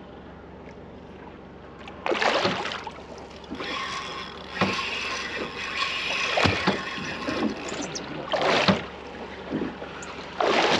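Water slapping and splashing against the side of a boat in irregular surges a second or two apart, with wind on the microphone.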